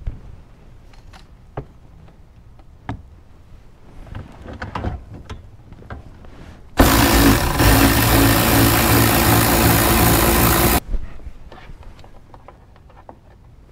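ACDelco cordless ratchet wrench running for about four seconds as it spins a 10 mm bolt out of the radiator shroud, then cutting off suddenly. Before it come a few light clicks and taps as the socket is fitted onto the bolt.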